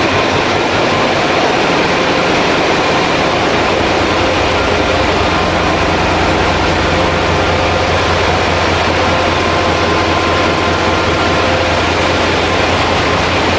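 Loud, steady din of a ship's engine room with its Wärtsilä diesel and auxiliary machinery running: a dense even noise over a deep hum, with a few steady whining tones. The low hum grows stronger about five seconds in.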